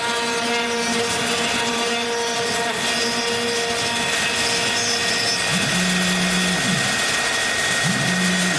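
CNC router spindle running with the end mill cutting aluminium: a steady whine over a harsh cutting noise. Twice in the second half a lower hum ramps up, holds for about a second and ramps back down.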